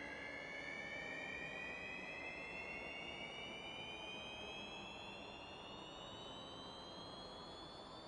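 A slowly rising tone with several overtones, climbing steadily in pitch over a low rushing noise bed: a soundtrack drone.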